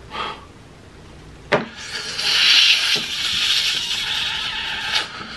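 A man's loud, hoarse scream of frustration, held for about three seconds from about two seconds in, after a sharp knock.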